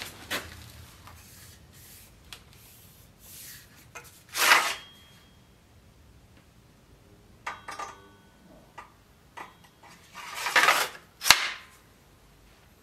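A long sword drawn from its scabbard with a brief scraping swish about four seconds in, then slid back in near the end with a longer hiss of the blade that ends in a sharp click as the hilt seats against the scabbard mouth. A few faint knocks and a short ring come in between.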